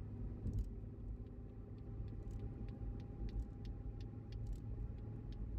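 Car driving along a highway: steady low rumble of road and engine noise, with faint scattered clicks.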